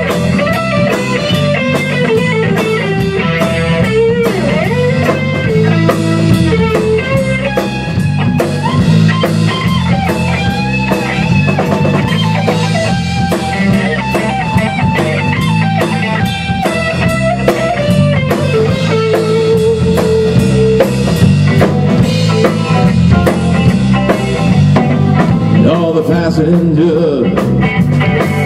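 Live rock band playing an instrumental passage with no singing: electric guitar, electric bass and a Tama drum kit, at a steady loud level.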